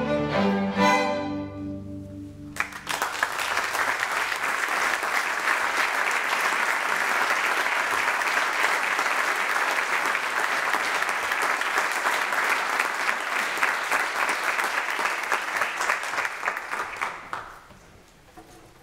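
A string ensemble's last chord rings and fades, then about two and a half seconds in the audience breaks into applause, which keeps up steadily and dies away near the end.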